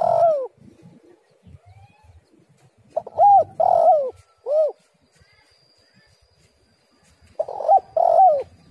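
Spotted dove cooing in short phrases: the end of one phrase right at the start, a three-note coo about three seconds in, and a two-note coo near the end.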